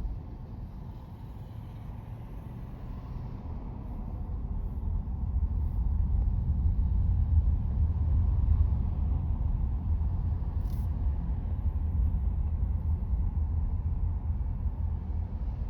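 Car driving, with a steady low rumble of road and engine noise that grows louder a few seconds in and then holds.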